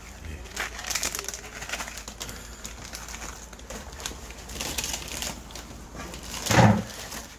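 Plastic ramen packets crinkling and rustling as seasoning is shaken into an aluminium pot, with scattered light clicks. Near the end comes one short, loud, low pitched sound, like a brief hum or coo.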